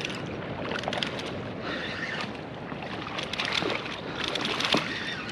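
Water lapping and moving at the shore, with wind on the microphone and a few light clicks and knocks.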